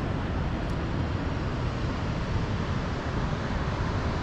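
Steady rushing of water discharging from a dam outlet, a constant noise heaviest in the low rumble, with wind buffeting the microphone.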